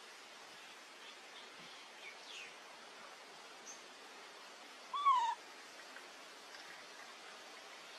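A single short, wavering animal call with a clear pitch, about five seconds in, over a steady faint hiss and a few faint high chirps.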